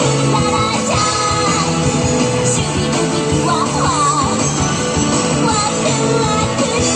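Loud pop-rock music with a singing voice and a steady beat.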